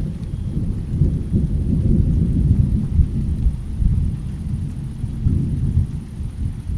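Thunder rolling in a long, low rumble in a rainstorm. It swells over the first few seconds, eases, then swells briefly again near the end.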